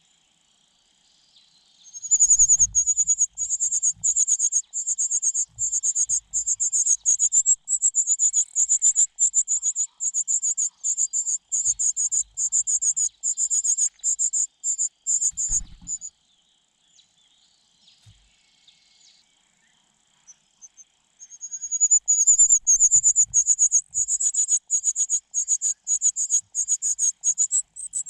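Nestling birds calling in a loud, rapid stream of short, high-pitched notes, which stops for a few seconds about midway and then starts again.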